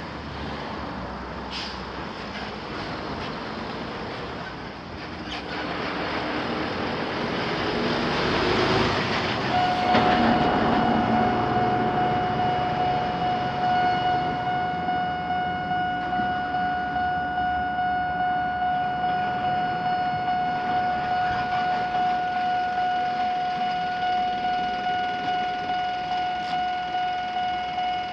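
A rushing noise builds over the first ten seconds. Then a Japanese level crossing's electronic warning bell starts and rings on with an even pulse. A few seconds after the bell starts, a second, higher-pitched alarm from a small warning lamp joins it, so the two clash into an odd mixed sound.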